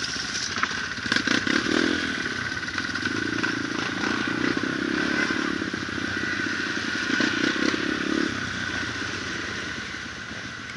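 Kawasaki KLX150 dirt bike's single-cylinder four-stroke engine pulling away and running at low speed on a gravel track, with a few knocks and rattles about a second in. The engine note strengthens about a second and a half in, holds steady, then eases off near the end.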